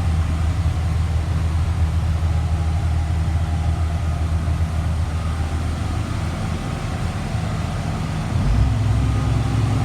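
2004 Blue Bird All American school bus engine idling, a steady low hum heard from the driver's seat; the hum's low notes change about three-quarters of the way through.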